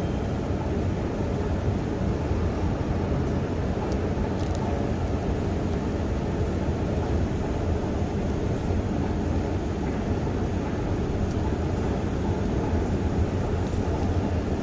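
Steady low mechanical rumble heard while riding a long escalator down into a deep underground railway station, the escalator's drive and the station's machinery running evenly.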